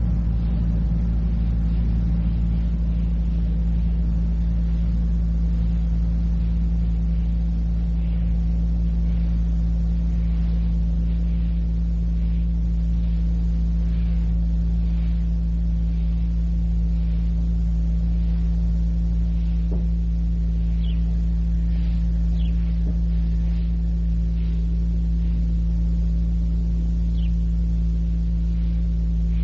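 Steady low hum of several fixed tones on an old cassette recording, with faint regular ticks about once a second and a few short high chirps in the last third.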